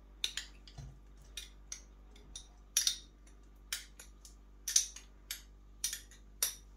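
A metal spoon knocking and scraping against a stainless steel pot as lumps of desi ghee are spooned in: about ten short, sharp clinks at uneven intervals.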